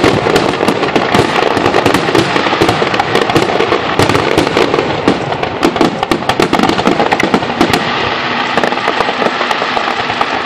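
Fireworks finale barrage: a rapid, unbroken run of overlapping shell bursts and bangs with crackle, too dense to count.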